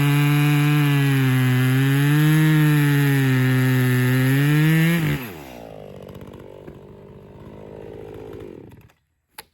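Two-stroke 60cc professional chainsaw at full throttle, cutting through a knotty firewood log, its pitch sagging and recovering under load. About five seconds in it drops off to idle, idles, then cuts out near the end.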